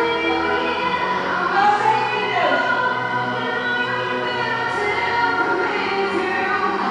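Music with a choir of voices singing over a steady bass line.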